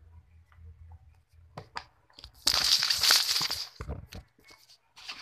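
Phone being handled, with fingers rubbing over its microphone: a loud, harsh crinkly scraping for about a second and a half midway, with scattered clicks and taps of handling before and after.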